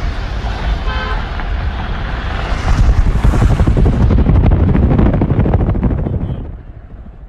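Wind buffeting and road rumble from a moving car, picked up by a phone held out of the window, swelling through the middle and fading away near the end.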